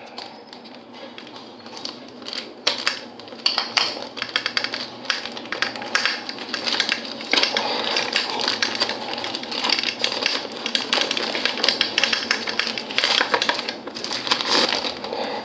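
Packaging being cut open and handled by hand: rustling and crinkling with many sharp clicks, sparse at first and then busy from about three seconds in.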